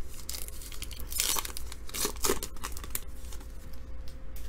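Crinkly plastic wrapper of a trading card pack being torn open and crumpled in the hands, in several short crackling strokes.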